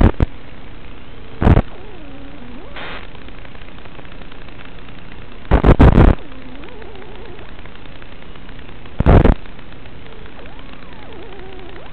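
Static on an analog 5.8 GHz FPV video link's audio channel as the DVR records it: a steady hiss broken by sudden loud bursts of noise, three of them plus the tail of another at the start, as the video signal breaks up. Faint wavering tones sound underneath.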